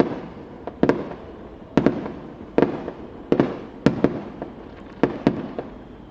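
Aerial firework shells bursting in quick succession: about a dozen sharp bangs, some in close pairs, each trailing off in a rumbling echo.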